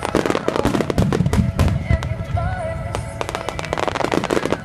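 Fireworks finale: a rapid, dense run of aerial shell bursts and crackling, with music playing underneath.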